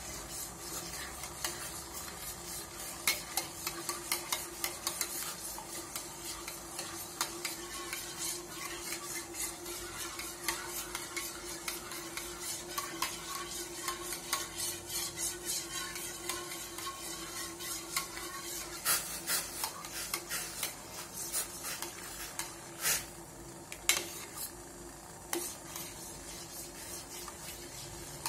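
A metal spoon stirring soaked gelatin in a small stainless steel bowl set in hot water, melting it in a double boiler. It makes a quick, irregular run of clinks and scrapes against the steel, with a few louder clinks in the second half, over a steady faint hum.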